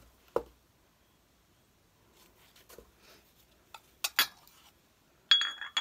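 White porcelain cups and saucers being handled and set down. There is a soft knock about half a second in, a few sharp clinks about four seconds in, and near the end a porcelain clink that rings on briefly.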